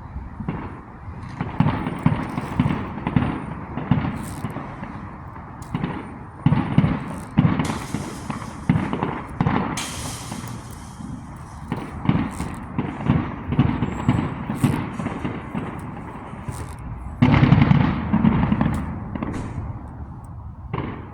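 Consumer fireworks going off in quick succession: a steady run of booms and bangs with crackling, and a dense, louder burst of blasts about seventeen seconds in.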